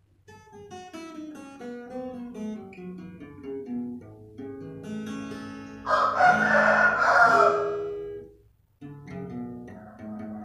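Acoustic guitar played fingerstyle, single plucked notes and chords. About six seconds in, a loud harsh sound lasting nearly two seconds rises over the playing. The guitar then breaks off briefly and starts again near the end.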